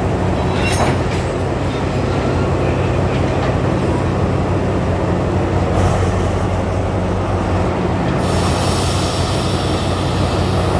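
Alsthom diesel locomotive's engine idling with a steady low drone. There is a brief knock about a second in, and a loud steady hiss starts about eight seconds in.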